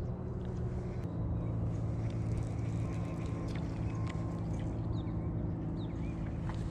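A steady low engine drone, like a motor running at a distance, with its pitch shifting slightly about a second in.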